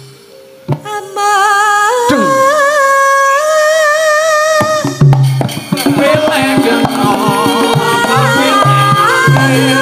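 Female sinden singing a long, held, wavering melody, alone at first. About four and a half seconds in, gamelan accompaniment with quick drum strokes comes in under her voice.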